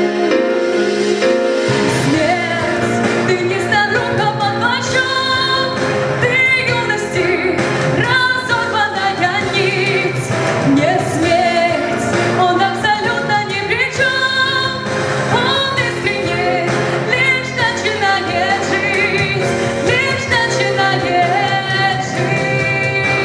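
Song music: a slow ballad accompaniment with a wavering lead melody over it. A low bass line comes in about two seconds in.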